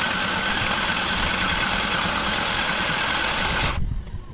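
Small electric mini sewing machine running steadily as it stitches through fabric, stopping near the end.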